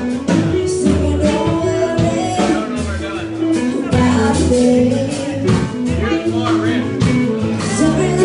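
Live band playing a song, with bass, guitar and drums and a voice singing over them.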